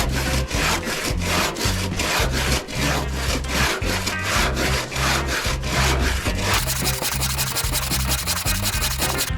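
Saw cutting through a pine log in steady back-and-forth strokes, about three a second, over background music with a steady bass line.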